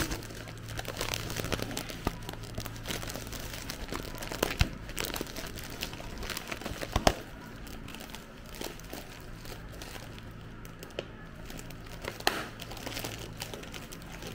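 Thin plastic bag crinkling and crackling in the hands as its tied-off top is picked at and worked open. It is busiest in the first half and gets sparser and softer after about eight seconds.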